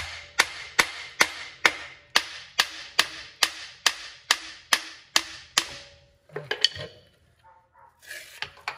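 Dana 60 front axle shaft being yanked in and out against its housing to work it free, giving a steady run of sharp metallic clunks, about two a second, each with a short ring. The knocking stops after about five and a half seconds, followed by a few softer clunks and scrapes as the shaft slides out.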